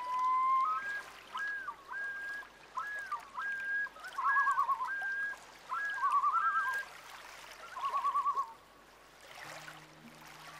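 Added background audio: a run of short, high whistled notes and warbling trills over a faint watery hiss. The whistling stops about two seconds before the end.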